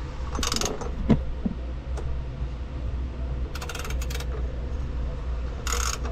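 Bursts of sharp metallic clicking from a wrench turning a Sea-Doo Rotax engine by hand through the supercharger nut: a few clicks about half a second in, a quick run of clicks around the middle, and another burst near the end, over a steady low hum.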